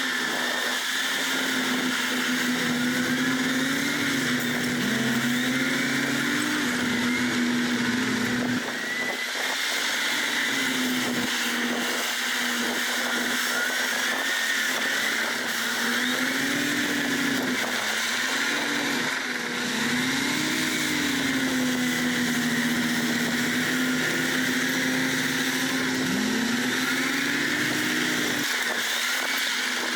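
Heavy diesel engine of an earthmoving machine running, its steady drone dipping and rising in pitch several times as the revs change.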